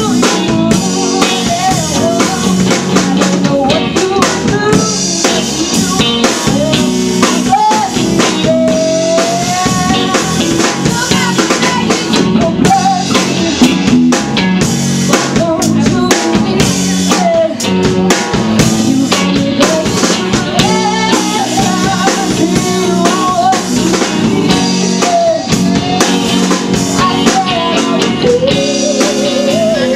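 Live rock/funk band playing loudly: drum kit with kick, snare and rimshots driving a steady beat under bass and a wavering melody line.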